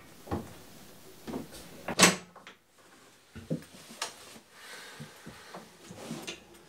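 A door being handled and opened: a series of clicks and knocks from its handle and latch. The loudest comes about two seconds in, followed by several softer knocks.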